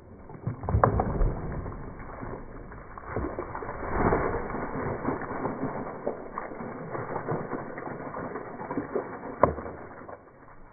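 Slowed-down, muffled audio of a slow-motion replay as a chopper blade bursts a water-filled plastic bottle on a wooden chopping stump: a dull rumble of splashing water with scattered knocks, one sharp knock about nine and a half seconds in.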